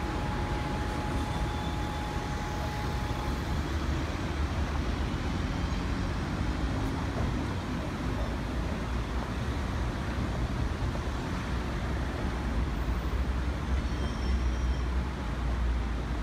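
Street traffic as a Class 399 Citylink electric tram-train moves slowly along street-running track beside the road: a steady low rumble of vehicles. A thin steady whine fades out about three seconds in.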